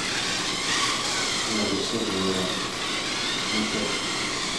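Small electric motors of Radio Shack XMods RC cars whining as they drive, the pitch rising and falling as they speed up and slow down.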